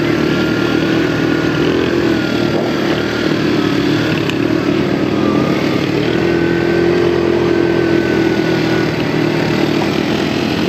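ATV engine running steadily under way, its pitch rising a little about six seconds in and easing back a few seconds later.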